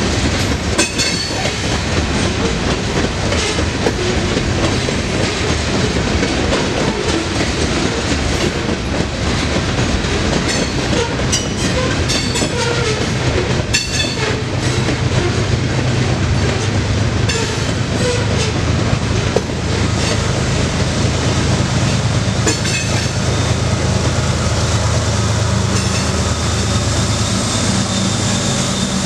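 Loaded covered hopper cars of a sand train rolling past, wheels clicking and clacking over the rail joints. Over the second half the low, steady drone of a mid-train distributed power diesel locomotive grows louder as the unit comes alongside near the end.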